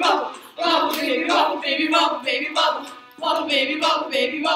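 Several young women's voices singing a song together, unaccompanied, in sung phrases about two seconds long. The singing breaks off briefly about half a second in and again about three seconds in.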